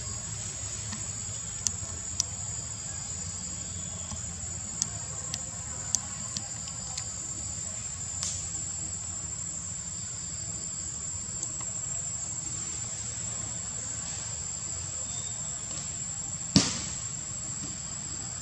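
Insects singing in one steady high-pitched tone, over a low rumble, with a few sharp clicks here and there and one louder click near the end.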